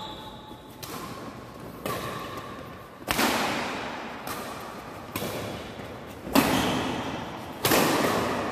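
Badminton rackets striking a shuttlecock in a fast doubles rally of smashes and returns: sharp cracks about once a second, each echoing in the hall, the loudest a little past the middle.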